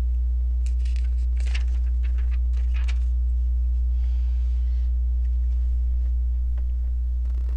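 Plastic Lego pieces being handled and pressed together: a run of small clicks and rattles in the first three seconds, a soft rustle about four seconds in, then a few faint clicks, over a steady low electrical hum.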